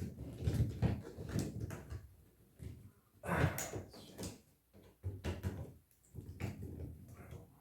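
Irregular plastic knocks and clatter from handling an old hardwired smoke alarm and its mounting base, with a denser burst of rattling about three seconds in.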